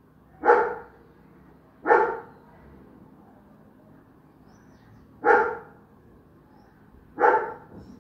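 A dog barking: four single barks, two close together near the start and two more in the second half.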